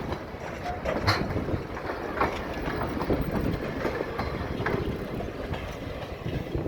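A train rolling past, with a steady rumble and irregular sharp clicks of its wheels over the rail joints.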